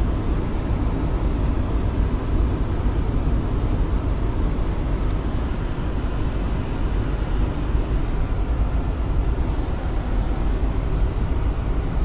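Wind buffeting the microphone: a steady, fluttering low rumble.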